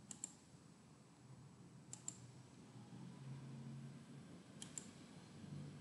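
Three computer mouse clicks, each a quick double tick, about two seconds apart, over faint room tone.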